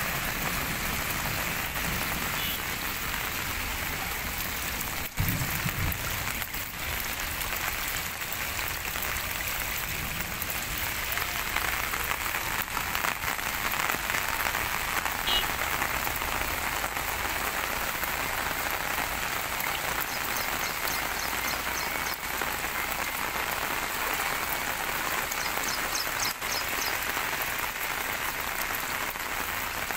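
Heavy rain falling steadily on flooded ground, a constant even hiss. A single thump about five seconds in.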